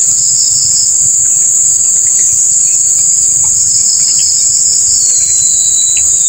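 Loud, steady, high-pitched insect chorus shrilling without a break. A thin tone slides slowly downward about five seconds in.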